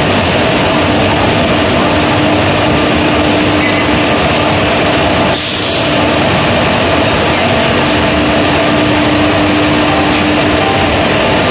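WAP-4 electric locomotive pulling slowly away from the platform, its cooling blowers and traction motors running with a loud, steady rushing noise over a steady hum. A short hiss comes about five seconds in.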